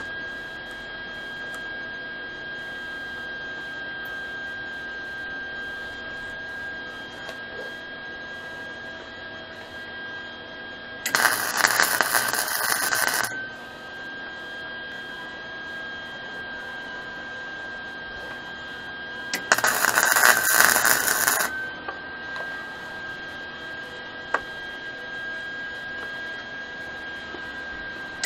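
MIG welder tack-welding steel chain links: two short bursts of crackling arc sizzle, each about two seconds long, roughly eight seconds apart. A steady high whine runs underneath.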